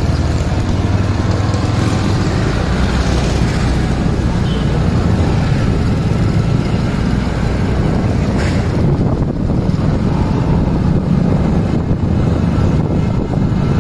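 Motor vehicles on the move: steady engine and road noise from riding along a busy street behind a small jeep, with a strong low rumble throughout.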